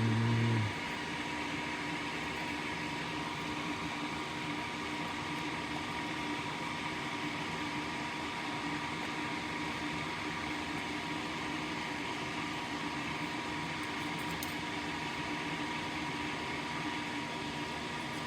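Steady fan-like hum and hiss with faint steady tones, opening with a brief loud low electrical buzz lasting under a second.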